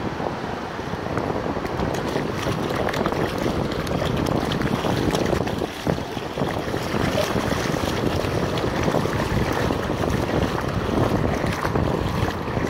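Wind buffeting the microphone over the steady wash of small waves running up the beach.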